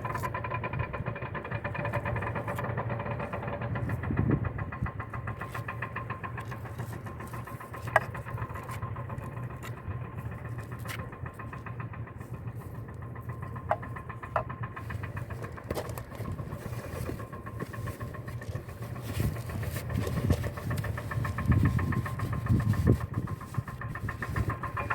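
A motor or engine running steadily with an even hum, with a few sharp clicks and some dull knocks from handling.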